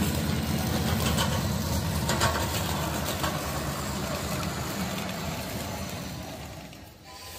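Engine of a ride-on miniature diesel-style locomotive running steadily as it hauls its train of cars past, with a few sharp clicks in the first few seconds. The sound fades near the end as the train moves away.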